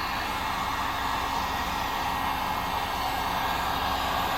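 Heat gun blowing steadily with an even rushing hiss, used to shrink window tint film to the curve of a car's rear glass.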